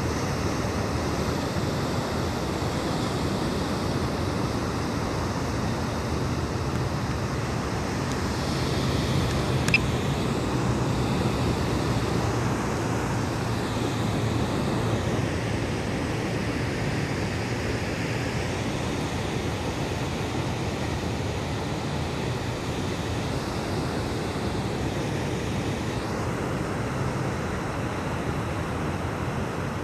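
Steady outdoor noise of ocean surf and wind, with one short click about ten seconds in.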